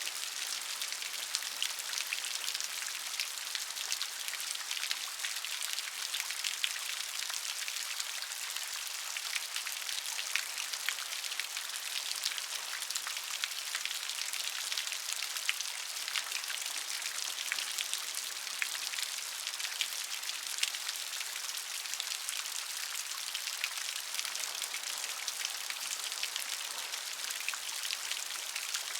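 Steady rain falling, many separate drops ticking sharply on a surface over an even hiss, with almost no low rumble.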